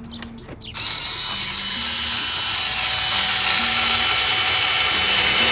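Cordless power drill running steadily for several seconds, driving a screw back in. It starts about a second in and grows slowly louder.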